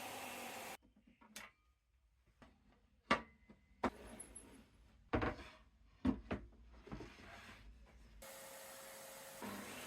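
Pieces of wood being handled on a shop bench, with about six sharp wooden knocks and some rubbing and scraping. A steady noise runs at the start, cuts off in the first second and returns about eight seconds in.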